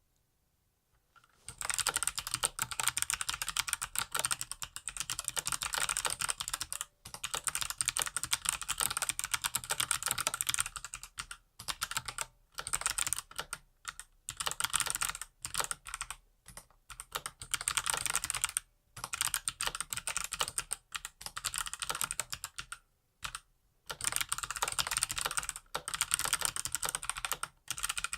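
Fast typing on a Cooler Master MasterKeys Pro L mechanical keyboard with clicky Kailh Box Jade switches: a dense stream of sharp keystroke clicks that starts about a second and a half in and is broken by brief pauses.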